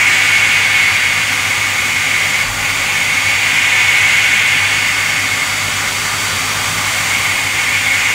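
CNC milling machine spindle running steadily while an end mill circular-interpolates the finish bore in an acrylic block: a steady high whine over an even hiss.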